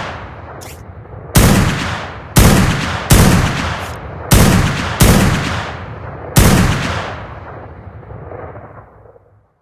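Fabricated sniper rifle shot sound effect: six sharp shots at uneven intervals, each trailing off in a long, fading echo, the last dying away over about three seconds.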